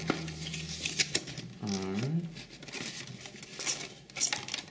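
Fingers prising at a tight white paperboard box, its sleeve and flaps scraping and rubbing, with scattered dry clicks and rustles.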